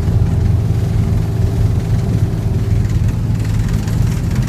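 Boat engine running steadily under way, a continuous low drone, with the rush of water from the wake.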